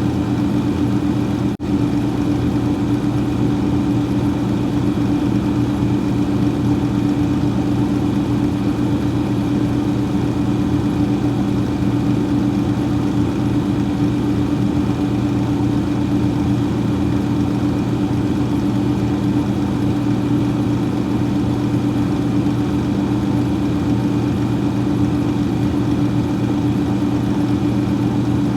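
Freezer fan running: a steady whirring hum with several low, even tones over a soft airy rush. It drops out for an instant about a second and a half in, then carries on unchanged.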